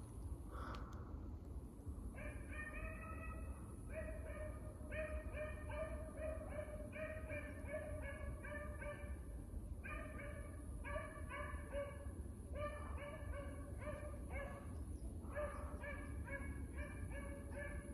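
Beagles giving rapid, rhythmic barking chop calls in runs of about four a second, with brief breaks, the cry of hounds running a track.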